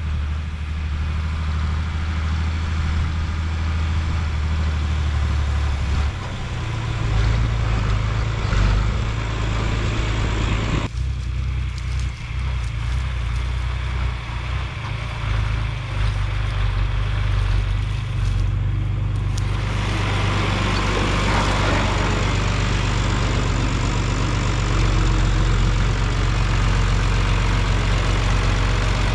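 Tractor engine running steadily with a strong low hum, its pitch and load shifting a few times: about 6 seconds in, with a sudden change about 11 seconds in, and a rougher, noisier stretch from about 20 seconds.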